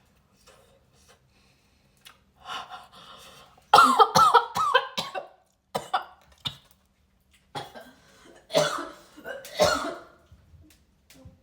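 A woman coughing hard and gagging in several fits, choking on a bite of brownie that she thinks went down the wrong pipe.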